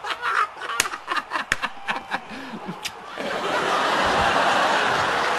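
A few sharp smacks and short vocal sounds, then about three seconds in a sitcom studio audience breaks into loud, sustained laughter.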